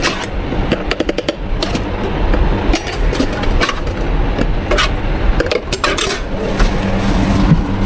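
Drink-making clatter behind a bubble tea counter: scattered sharp clicks and knocks of cups and utensils over a steady low machine rumble, with a hum coming in near the end.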